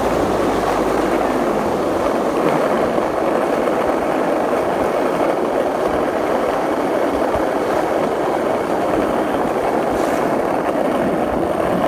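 Skateboard wheels rolling over rough asphalt: a steady rolling rumble, with an occasional faint sharp click.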